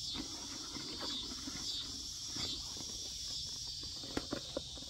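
A steady high insect chorus that swells and eases every second or so, with rustling as a tote bag is handled and a few sharp clicks near the end.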